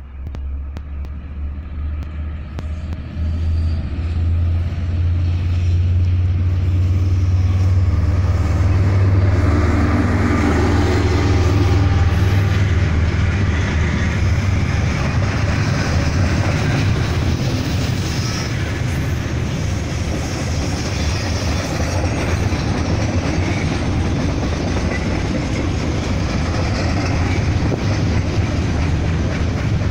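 DL-class diesel-electric locomotive approaching and passing, its deep engine drone building to its loudest about ten seconds in. Freight wagons follow with a steady rumble and clatter of wheels on rail.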